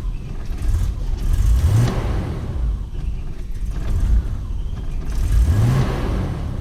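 BMW E34 525i's inline-six engine idling badly and revved up twice, the revs climbing about two seconds in and again near the end.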